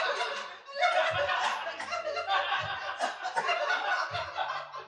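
A group of people laughing and chuckling together, over background music with a low beat about every second and a half.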